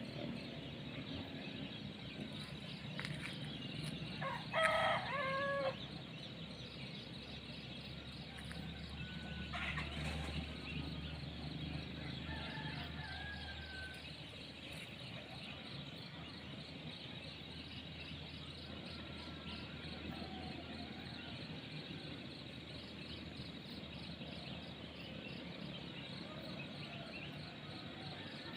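A rooster crows once, about five seconds in, over a steady background hiss of rural ambience with a few faint calls.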